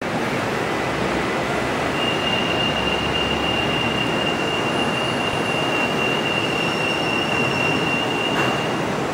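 Steady noise of a Bombardier Innovia 300 monorail train standing at a station platform. A steady high-pitched tone sounds from about two seconds in and stops shortly before the end, while the train doors and platform screen doors close; a brief knock near the end comes as the doors shut.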